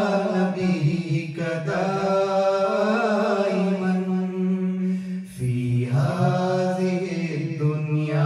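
Men singing a qaseeda unaccompanied into handheld microphones, holding long, ornamented notes, with a short break about five seconds in before a lower note begins.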